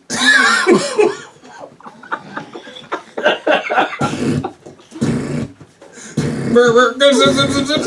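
A person making sound effects with the mouth, beatbox-style: zipping and sputtering noises for a zipper that keeps getting stuck. The noises are loud in the first second, then come as scattered quieter bits, and turn louder and more voice-like near the end.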